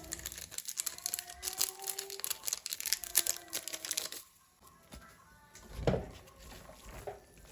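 Plastic packaging crinkling and rustling in dense little crackles for about four seconds, then quieter, with one soft thump later on.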